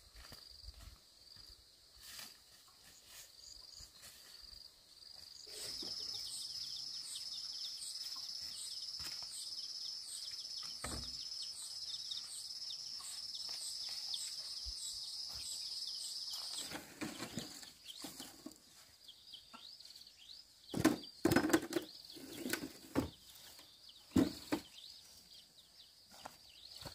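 Steady high-pitched insect drone that swells about five seconds in with a fast pulsing shimmer, then drops back about sixteen seconds in. After that come rustling footsteps and a few sharp knocks as long bamboo poles are handled, the loudest knocks about three-quarters of the way through.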